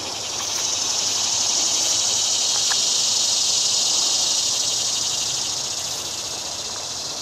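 Insects buzzing in the trees: a high, dense drone that swells over the first couple of seconds and fades away near the end.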